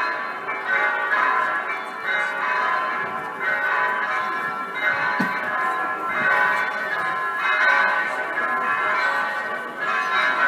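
Electronic church bells, a simulated eight-bell set tuned to a slightly sharp B, ringing a continuous peal: several bells strike in overlapping, clanging strokes that swell and fade about once a second.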